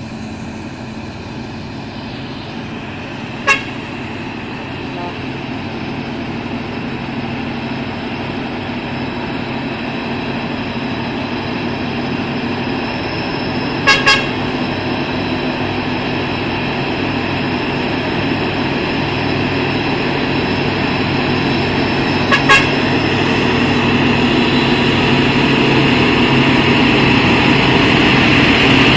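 A truck engine pulling up a steep climb, growing steadily louder as it approaches. Short horn toots sound about 3.5 s in, twice at about 14 s and twice at about 22 s.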